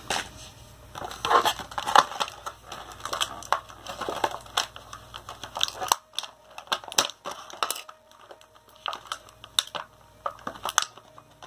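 Stiff clear plastic toy packaging crackling and crinkling as it is handled and opened, with many sharp snaps and clicks.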